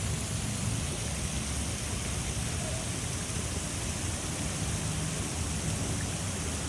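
Steady rushing of falling water, an even hiss over a low rumble.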